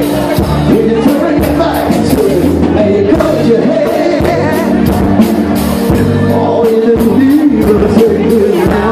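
Live blues band playing: singing over electric guitar, bass guitar, drums and keyboards, with a steady drum beat.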